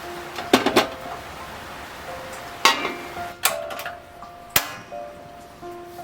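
Background music with held melodic notes, with a handful of sharp knocks or clacks, the loudest about half a second in and others near the middle.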